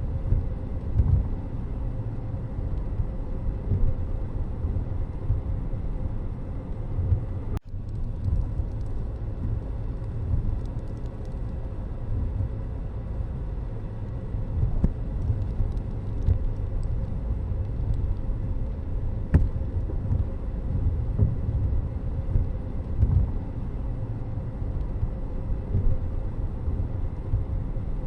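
Steady low rumble of a vehicle driving on a road, with a brief break about seven and a half seconds in.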